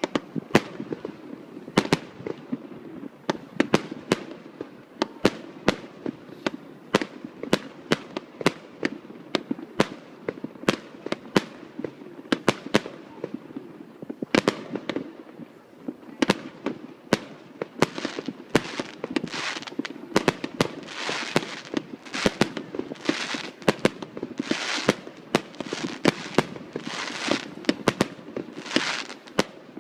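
Fireworks display: a rapid, irregular string of sharp bangs from exploding shells. In the second half the bangs are often followed by bursts of crackling hiss.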